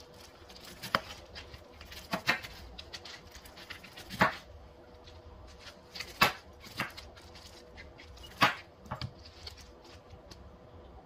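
Chef's knife cutting pineapple flesh off the base of pineapple crowns on a wooden cutting board: irregular sharp knocks of the blade hitting the board, about eight of them a second or two apart, with softer cutting sounds between.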